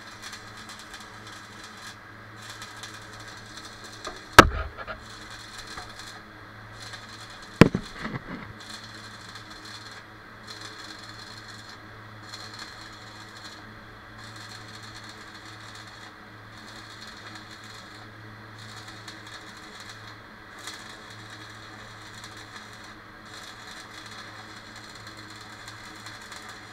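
Arc welding inside a steel fuel tank: the arc crackles and hisses in runs of a second or two with short breaks, over a steady low hum. Two sharp metal knocks, the loudest sounds, come about four and seven and a half seconds in.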